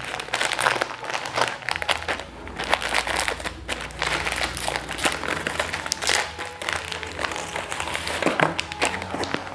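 A large crinkly plastic snack packet being handled and snipped open with scissors: a dense, irregular run of crackles and rustles.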